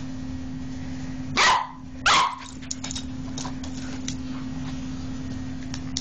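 Pembroke Welsh Corgi puppy barking twice, about a second and a half in and again half a second later, at a small handheld electric massager that buzzes steadily while it runs and vibrates.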